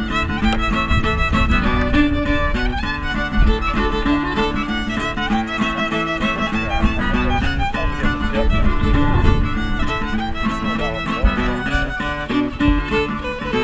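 Fiddle music with a guitar accompaniment, a steady run of held and moving notes.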